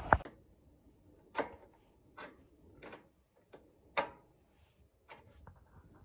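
A few light, separate clicks and knocks, about seven spread unevenly, from the phone and things around it being handled inside the van.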